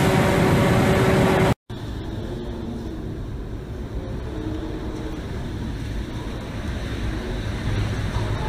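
Hurricane-force wind and rain. In the first stretch it is loud, with a steady tone through it; this cuts off abruptly about a second and a half in, and is followed by a quieter, low rumbling wind with rain that slowly builds.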